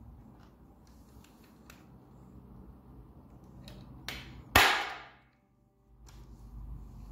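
A sharp snap about four and a half seconds in, its hissing tail dying away within half a second, just after a lighter click. Faint scattered taps and a low hum lie under it.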